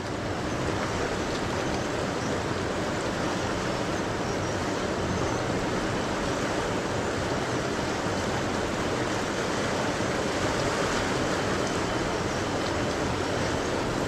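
Fast-flowing river water rushing steadily, an even noise without breaks.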